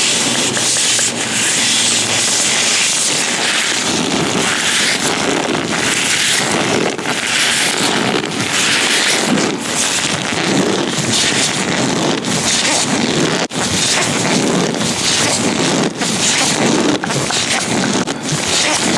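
Latex-gloved hands rubbing and gripping close against the microphone: a loud, continuous rustling friction noise that swells and dips about once a second, with one sharp click about two-thirds of the way through.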